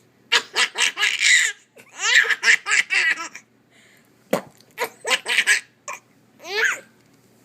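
Baby laughing in about four bursts of a second or so each, with short pauses between them.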